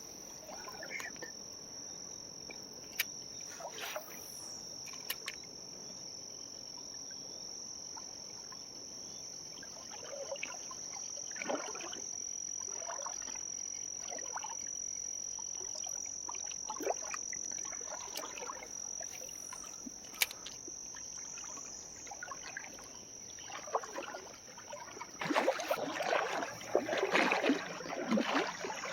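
Summer insects keep up a continuous high-pitched buzz. A few short clicks are scattered through it, and louder irregular rustling and splashing noises begin a few seconds before the end.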